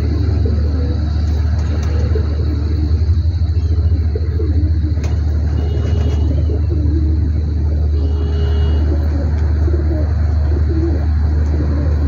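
Domestic pigeons cooing, their wavering low calls repeating over a loud, steady low rumble.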